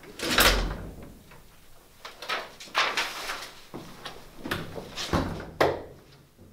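A door shutting with a heavy thud about half a second in, followed by footsteps and handling knocks, and another sharp knock near the end.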